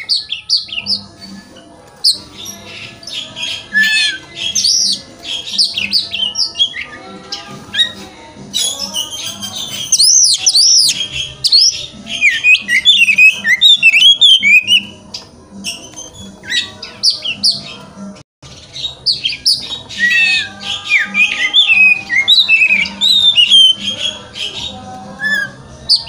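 Oriental magpie-robin (kacer) singing: a loud, fast run of varied whistles, trills and harsh chattering notes, in bursts with brief pauses between.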